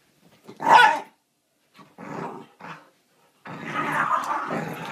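Dogs play-growling during a tug of war over a rope toy: a loud bark just under a second in, short growls around the middle, then a long stretch of continuous growling near the end.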